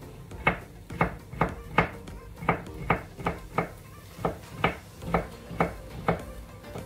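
Kitchen knife chopping vegetables on a cutting board: a steady run of sharp chops, about two a second.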